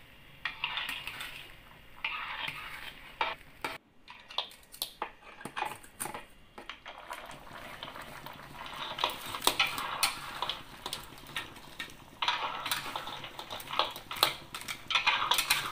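Metal spatula scraping and clinking against a wok as whole crabs are stirred through a boiling butter and evaporated-milk sauce, in a run of irregular knocks and scrapes.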